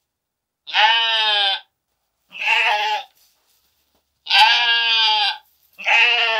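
Sheep bleating: four loud, quavering bleats of about a second each, the second one shorter.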